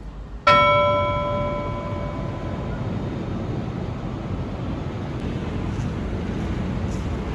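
A single bell-like ding, struck once about half a second in and ringing out for a second or two, over a steady background rumble.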